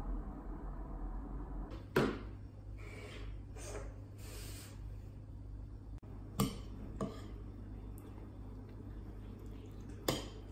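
Metal fork clinking and scraping in a ceramic bowl: a few sharp clinks spread over several seconds, over a steady low hum.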